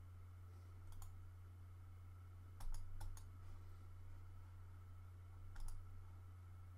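Computer mouse clicks: four short, sharp clicks a second or more apart, each a quick double tick of button press and release, over a steady low electrical hum.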